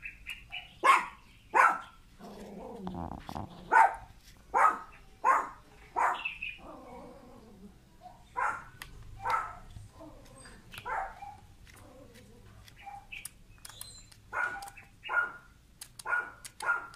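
Puppy giving short, sharp yelping barks, one every half second to second, with a lower drawn-out groan about two to three seconds in: the cries of a puppy during an epileptic seizure.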